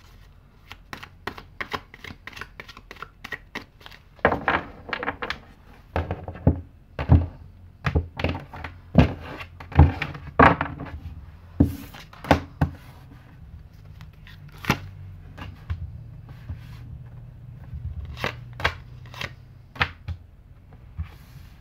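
Tarot cards being handled and laid down on a table: an irregular run of sharp card snaps and taps, loudest in the middle.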